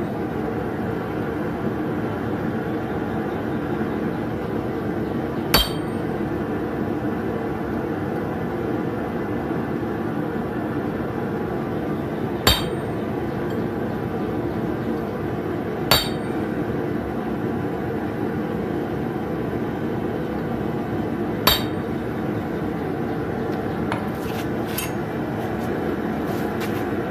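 Hand hammer striking steel on an anvil: four single sharp, ringing blows spaced several seconds apart, working the cooled nail blade. A steady background rush runs underneath, and a few light metallic clinks come near the end.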